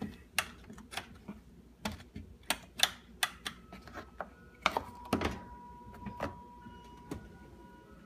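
A run of sharp plastic clicks and knocks from the detergent dispenser on the inside of a dishwasher door as a detergent pod is set in the cup and the lid is snapped shut. About halfway through, a faint steady high tone starts and holds for about two seconds.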